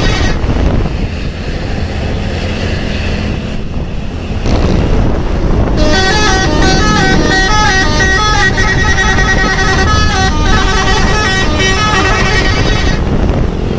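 Telolet musical multi-tone horn of an RJB Trans bus playing a melody of short notes stepping up and down in pitch. It starts about six seconds in and stops about a second before the end. Before it there is steady vehicle rumble, with a horn note cutting off right at the start.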